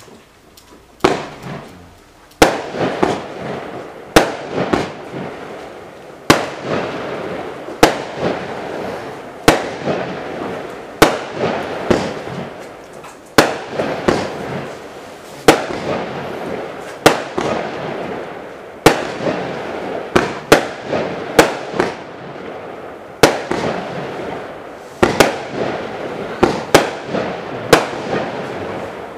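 A 96-shot consumer fireworks cake firing in sequence: a sharp report about every one and a half seconds, with smaller pops between the shots.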